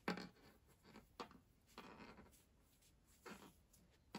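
Faint rustling and brushing of acrylic-looking yarn being drawn through crocheted stitches and hands handling the fabric: a few short scrapes, the first the loudest.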